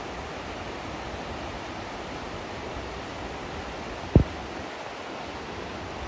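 San Antonio Falls: a steady, even rush of falling water, with one brief low thump about four seconds in.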